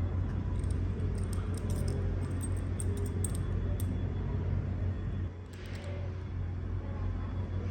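Light metallic clicks and rattles from small connector parts and wires being handled, over a steady low hum.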